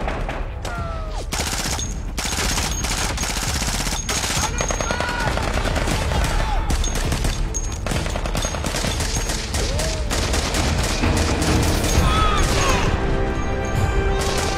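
Heavy rapid gunfire from automatic rifles, many shots in quick succession, layered over a tense music score that comes forward in the last few seconds.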